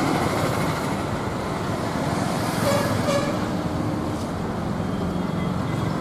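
Steady road traffic noise with engines running. A brief higher tone comes about halfway through.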